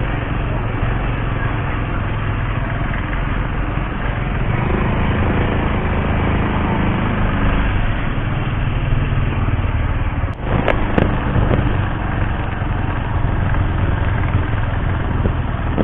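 Motorcycle engine running steadily at low speed, with a steady rush of wind and road noise over it. A few sharp clicks come about ten seconds in.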